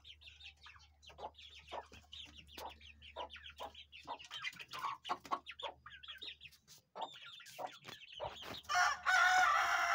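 Chickens clucking with many short, high calls, then a rooster crowing loudly near the end, its loudest sound.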